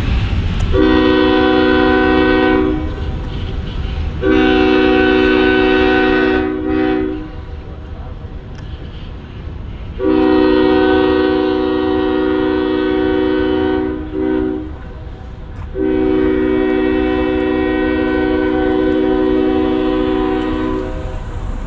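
GE ES40DC diesel locomotive's air horn sounding a chord in four blasts, the last the longest, over the steady low rumble of the locomotive's diesel engine.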